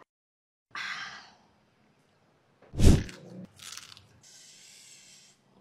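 Close-up eating and drinking sounds: a breathy exhale after a drink about a second in, then a loud sudden bite about three seconds in, followed by crunching and chewing of dry stick-noodle snacks.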